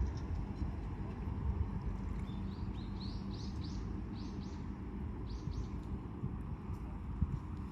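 A bird calling a run of short high chirps, several in quick pairs, for about three seconds starting near the middle, over a steady low rumble.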